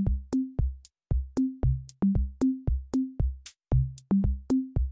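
Electronic background music: a drum-machine beat of about four hits a second, with short pitched bass notes under each hit.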